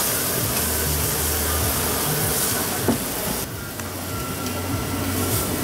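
Souvlaki skewers and sausages sizzling on a hot flat-top griddle, a steady frying hiss that dips briefly about three and a half seconds in, over background music with a low bass line.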